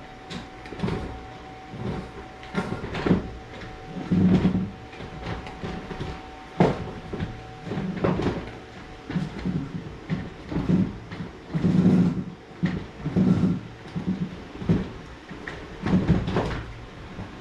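Irregular knocks and thumps, about one or two a second, some louder than others. A faint steady hum runs underneath and stops about eight seconds in.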